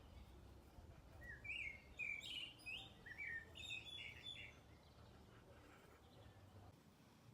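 A songbird singing a quick phrase of short, high chirps, faint, over a low background rumble.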